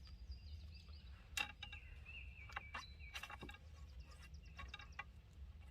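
A few light knocks and scrapes of a ramrod cramming a wasp-nest wad down the barrel of a muzzleloading shotgun, with a bird whistling in the background.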